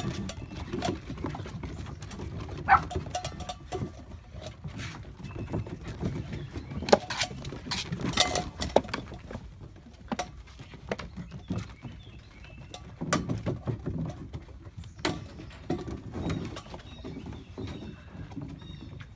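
Golden retriever puppies scrambling on a wooden deck, with repeated sharp clanks and knocks of a small metal bucket being carried, dragged and bumped by a puppy.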